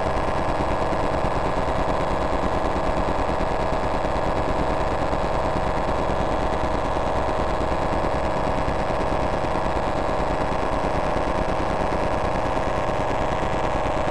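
Infrared signals from several TV remote controls, turned into sound by a light-to-sound device and layered together. They make a dense, steady rattle of very rapid pulses, with a few steady tones running through it.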